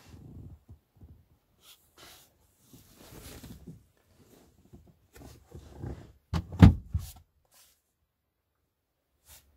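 Irregular rubbing, rustling and knocks of a hand working over a car's rear bench seat upholstery, with a heavier thump about six and a half seconds in and a short click near the end.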